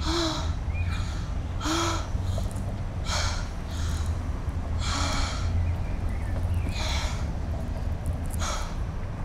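A young woman breathing hard in exasperation: about seven loud, gasping breaths and huffs, roughly a second or more apart, over a steady low rumble.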